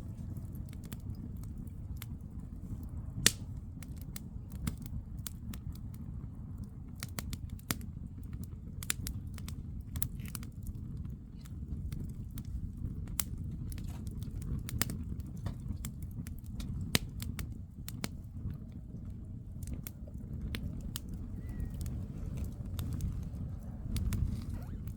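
Wood campfire crackling: irregular sharp pops and snaps over a steady low rumble, with two louder pops, about three seconds in and about seventeen seconds in.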